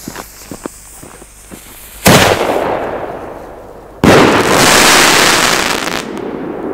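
50 mm firework singleshot fired into the night sky: a sharp launch bang, and about two seconds later a louder bang as the shell bursts, followed by about two seconds of dense crackle that cuts off suddenly.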